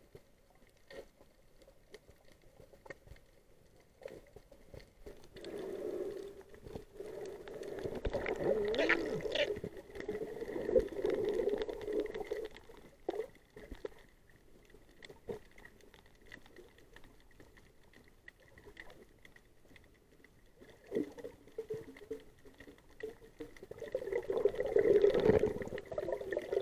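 Muffled underwater water sounds: gurgling and bubbling in two louder stretches, one from about five seconds in and one near the end, with faint scattered clicks and a thin steady high tone in the quieter parts between.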